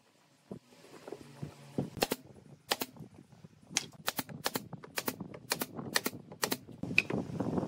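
Brad nailer driving brads into pine panels: a run of sharp clicks, mostly in quick pairs, about two a second, starting about two seconds in.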